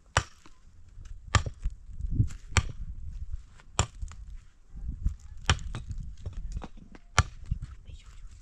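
A hand tool struck repeatedly by hand: about six sharp blows, a second or two apart.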